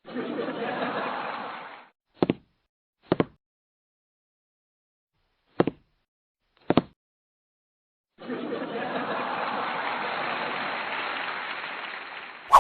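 A couple of seconds of noise, then four short double knocks a second or so apart, then about four seconds of noise ending in one sharp knock.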